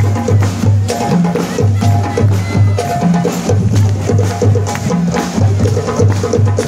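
Music with a steady beat: a repeating low bass figure in short notes over regular sharp percussion hits.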